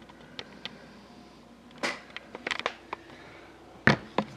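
Handling noise: a few light clicks, then a cluster of taps and rustles about two seconds in, and two sharp knocks near the end, the first of them the loudest.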